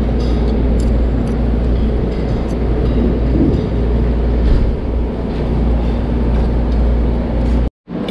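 Steady low rumble and noise of a ship underway, heard on board, with a few faint clicks of cutlery. The sound drops out for an instant near the end.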